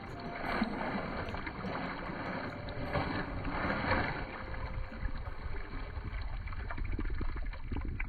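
Hand dip net swept and shoved repeatedly through a shallow, stony stream, splashing and churning the water in irregular surges.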